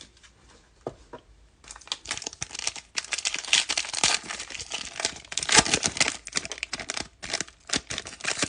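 Plastic trading-card pack wrapper crinkling and tearing as it is opened and handled, an irregular crackle that starts about a second and a half in.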